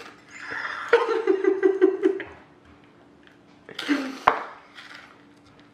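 A man laughing through a mouthpiece that holds his lips open, in a rapid run of pulses, then a short second burst of vocal noise with a sharp click near the end.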